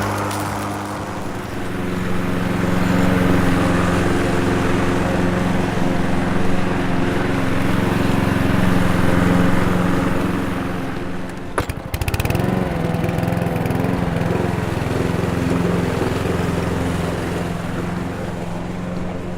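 Lawn mower engine running steadily. About twelve seconds in there is a brief break with a few clicks, after which the engine runs on at a slightly different pitch.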